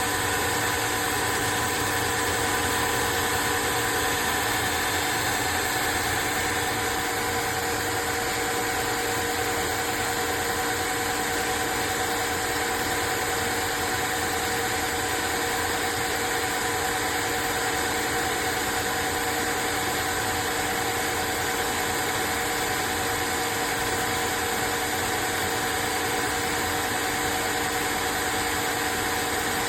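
Cordless wet-dry floor vacuum running steadily, a motor whine with a few held tones over an even rush of suction.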